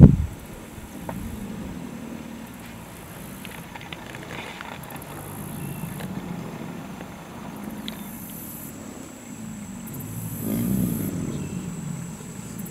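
A chorus of American alligators bellowing in courtship: low growls that rise and fall and swell loudest near the end. A brief loud burst comes at the very start.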